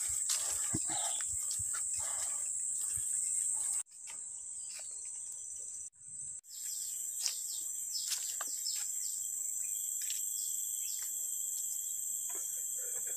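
Steady high-pitched drone of forest insects chirring, with light footsteps ticking on the dirt path; the sound briefly cuts out twice near the middle.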